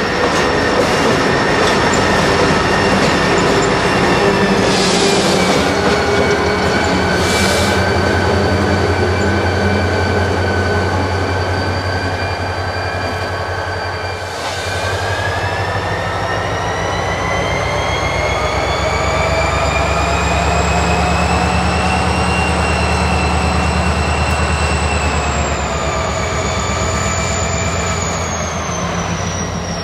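A train running by close at hand: a steady low rumble under a high whine made of several tones. The whine slides down in pitch until about halfway, climbs for several seconds, and falls again near the end.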